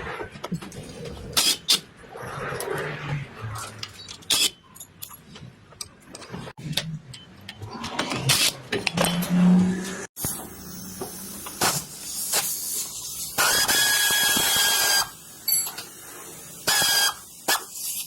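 Workshop clatter: irregular clinks and knocks of tools and metal parts being handled, with a steady whine lasting about a second and a half, starting a little past the middle.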